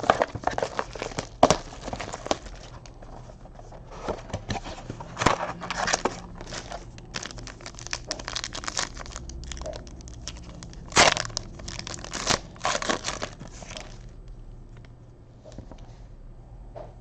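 Plastic trading-card pack wrappers crinkling and tearing as a pack is ripped open and its cards handled, in irregular bursts that die down near the end.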